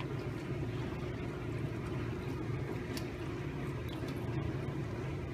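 A steady low mechanical hum with a few faint ticks on top.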